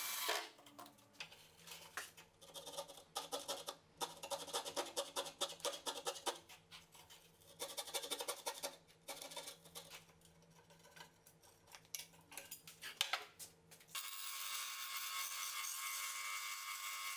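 A cordless drill stops right at the start. Then comes a long run of quick, uneven scratchy strokes, a fret saw cutting a paper template glued on thin plywood. About fourteen seconds in, a small benchtop bandsaw starts running steadily as it cuts the small piece.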